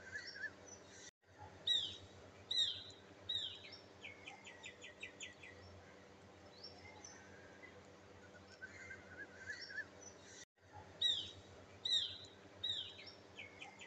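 Bird calls: three loud, sharp descending chirps followed by a rapid ticking trill. The same sequence repeats about nine seconds later, each time just after a brief dropout in the sound, over a faint steady hum.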